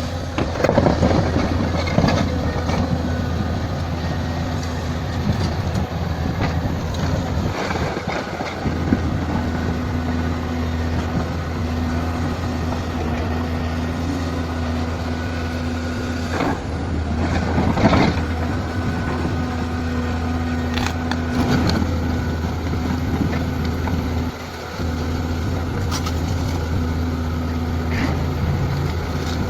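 Caterpillar 395 hydraulic excavator working in rock: its diesel engine runs with a steady low drone, broken now and then by sharp knocks and scrapes from the digging. The engine note dips briefly about three-quarters of the way through.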